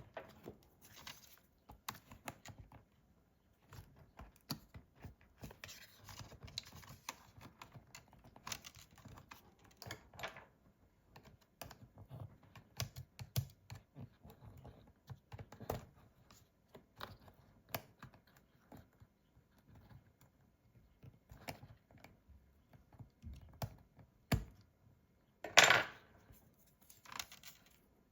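Light, irregular clicks, taps and scrapes of small tools and parts being handled while a MacBook Pro laptop is disassembled, with one louder, brief scraping clatter near the end.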